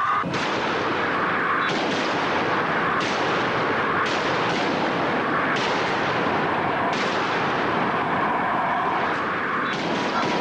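Repeated gunfire from rifles and shotguns, the shots coming about every one to one and a half seconds and blurring into a continuous harsh noise.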